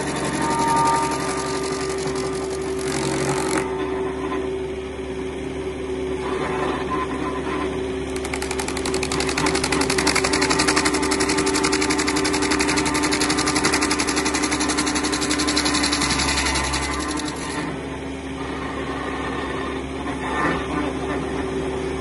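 Engine of tree-removal machinery running steadily with a held drone, working harder and louder for several seconds in the middle before easing back.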